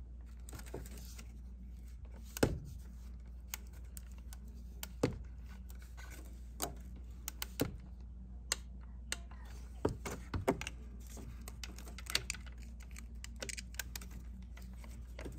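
Torque wrench ratcheting on the vacuum pump bolts of a Ford 2.0 EcoBoost: irregular metallic clicks and ticks, a handful of them sharper than the rest, over a low steady hum.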